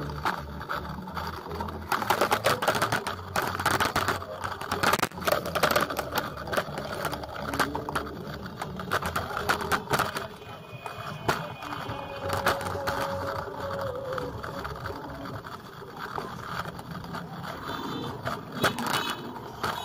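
A bicycle rattling over a rough dirt street: a dense, continuous run of small clicks and knocks, with voices of people in the street.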